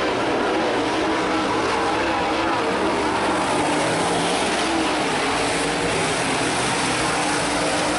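Super late model dirt-track race cars running laps together, a steady loud wall of V8 engine noise with several engines' pitches rising and falling slightly as the cars go around the track.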